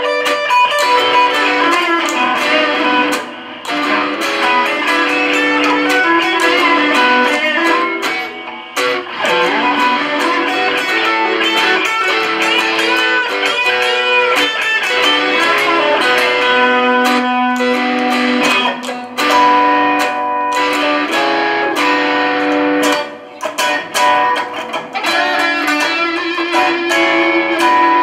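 Two electric guitars jamming a slow minor blues together, one playing single-note lines with bent notes over the other's chords.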